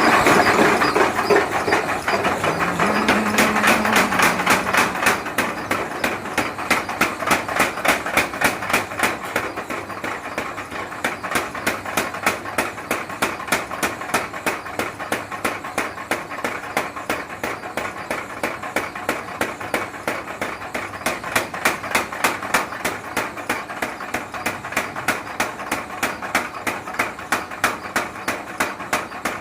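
Blacksmith's hammer striking metal in a steady rhythm, about three blows a second.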